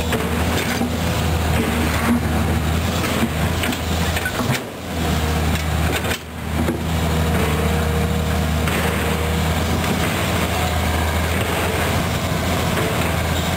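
Komatsu PC200 excavator's diesel engine running steadily under working load, with a deep, even drone, blended with the diesel of the drilling rig behind it. The sound dips briefly twice near the middle.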